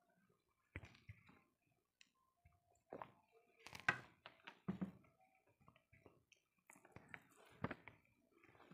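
Quiet eating sounds: fingers mixing rice on a plate and chewing, a scatter of soft clicks and wet mouth noises, with a sharper click about four seconds in.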